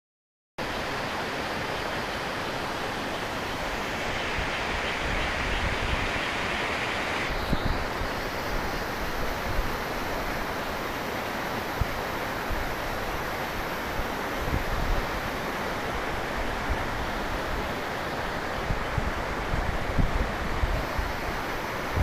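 Waterfall and the foaming white water below it making a steady rushing roar, with occasional low thumps of wind buffeting the microphone.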